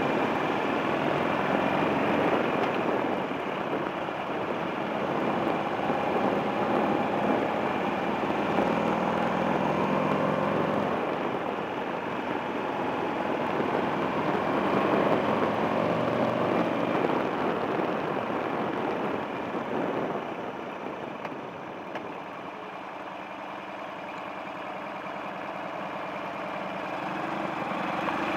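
Buell XB9SX motorcycle's air-cooled V-twin engine running while riding, heard from a handlebar-mounted camera. It goes quieter for a few seconds about two-thirds of the way through, then builds again near the end.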